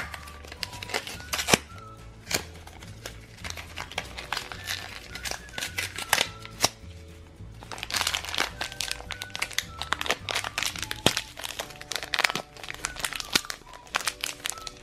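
Plastic packaging of a Shopkins blind basket crinkling and tearing as it is opened by hand, in many short crackles over background music with a steady bass pattern.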